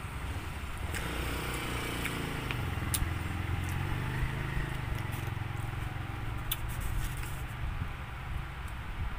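Low rumble of a motor vehicle, swelling about a second in and easing off after about six seconds, with a few sharp clicks and crinkles from a plastic sauce sachet being squeezed onto a pizza slice.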